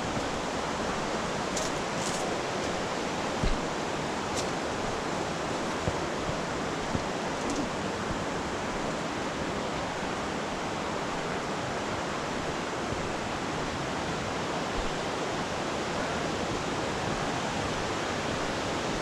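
Steady, loud rush of a nearby waterfall, with a few faint knocks from footsteps or handling.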